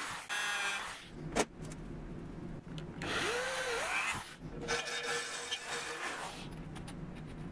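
Electric drill boring into a steel plate in several short runs, starting, speeding up and stopping each time, with a sharp click about a second and a half in.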